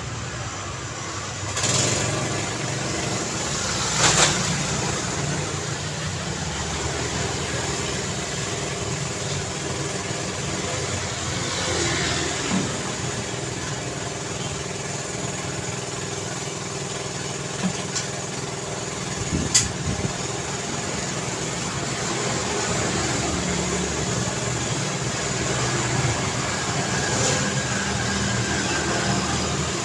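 Steady road traffic: engines running and idling with passing vehicles, and a few short sharp knocks or clicks about 4, 12, 18 and 20 seconds in.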